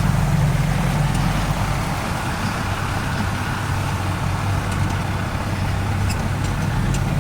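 Off-road vehicle's engine running steadily as it drives along a dirt trail, a constant low hum with road and drivetrain noise.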